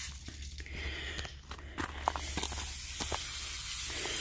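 Pieces of agatized coral and rock knocking and clinking together as they are shifted by hand on a pile of cut offcuts: a run of short sharp knocks in the first two seconds and a few more about three seconds in, over a steady hiss.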